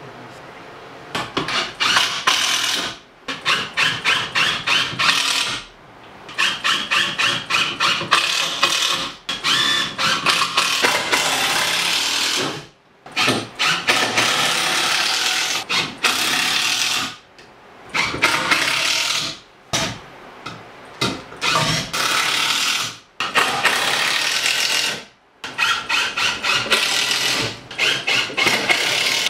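Impact driver driving screws into 2x4 framing lumber, a rapid hammering rattle in repeated runs of one to three seconds with short pauses between screws.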